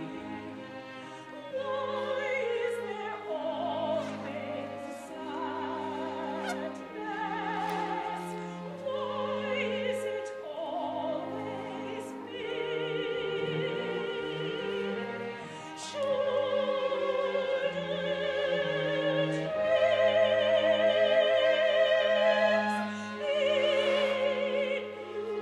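Opera music: a singer holds long notes with wide vibrato over orchestral accompaniment. It grows loudest about three-quarters of the way through.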